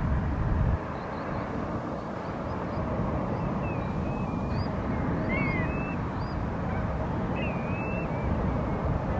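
Steady low rumble of a jet airliner on its landing approach, dropping suddenly under a second in. Small birds chirp in short bursts from about three and a half seconds in.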